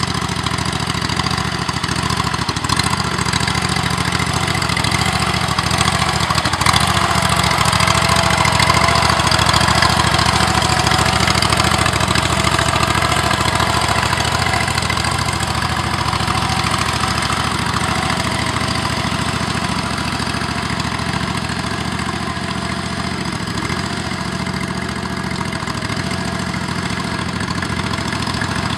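The tractor's 25-horsepower Briggs & Stratton engine runs steadily, driving the hydraulic pump that powers the wheel motors. It gets a little louder a few seconds in, then eases back.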